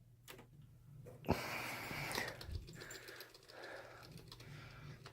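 A sharp click, then about a second of rustling and fainter scattered small clicks: hands handling computer parts and cables.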